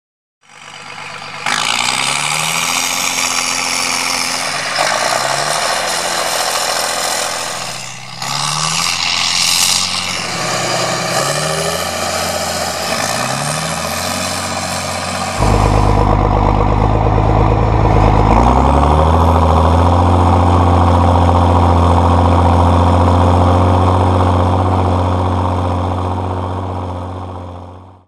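John Deere 4755 tractor's six-cylinder turbo diesel engine running under load while pulling a five-furrow Lemken Juwel 8 plough. Its pitch rises in short steps several times in the first half. About halfway in the sound changes abruptly to a louder, deeper steady engine note, which fades out at the end.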